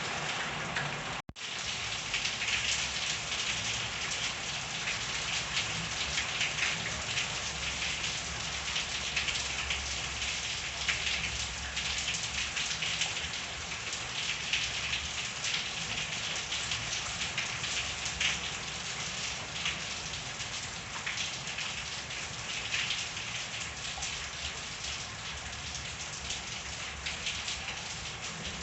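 Steady rain, a dense hiss of falling drops with many small drips and splashes, briefly cutting out about a second in.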